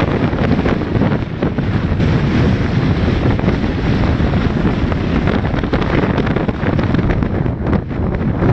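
Wind buffeting the microphone: a loud, steady rumbling noise, heaviest in the low end, with small gusts rising and falling.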